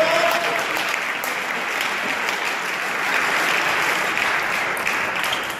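Spectators applauding in a sports hall after a table tennis point, a steady patter of clapping that eases off slightly near the end, with a short shout right at the start.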